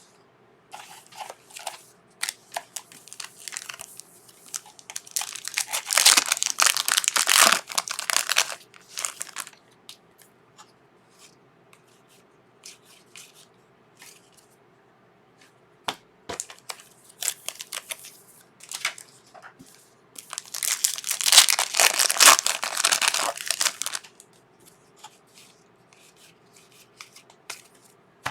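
Trading-card pack wrappers being torn open and crinkled by hand. Two longer, loud spells of crinkling come about five seconds in and again about twenty seconds in, with lighter crackles and taps between them.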